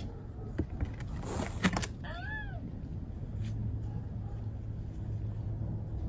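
A brief burst of rustling noise with a few clicks, then one short animal cry of about half a second that rises and falls in pitch, over a steady low rumble.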